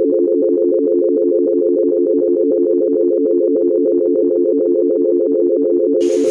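A loud synthesized sound effect: a steady buzzing chord of three low tones, pulsing rapidly many times a second.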